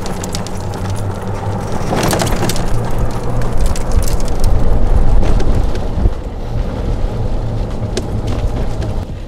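Golf cart driving on a paved path: a steady low rumble of tyres and running gear, with rattles and a few sharp clicks, loudest about halfway through.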